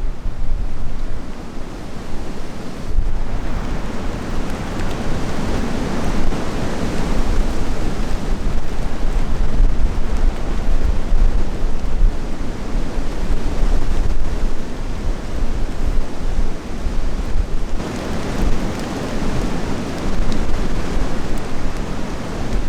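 Wind buffeting the microphone in gusts, a loud, even noise heaviest in the low end, growing stronger about three seconds in and easing a little toward the end.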